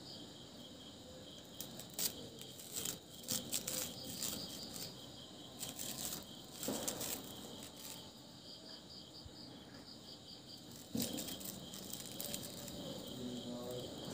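Crickets chirping steadily in the background, with rustling and a few sharp taps as thread is pulled and unwound from a paper-and-string 'atom bomb' firecracker by hand.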